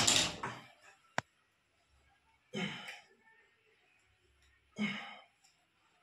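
Close handling noise at the fridge compressor's wiring: a loud rustle at the start and a single sharp click about a second in, then short breathy bursts about every two seconds.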